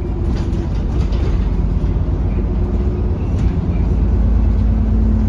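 Bus engine and drivetrain running under way, heard from inside the bus: a heavy low rumble with a steady hum, growing louder in the second half as the bus picks up speed.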